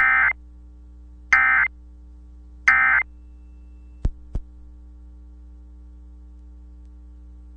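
Emergency Alert System end-of-message signal: three short bursts of SAME digital data tones, about 1.3 seconds apart, marking the end of the alert. Two sharp clicks follow about four seconds in, over a low steady hum.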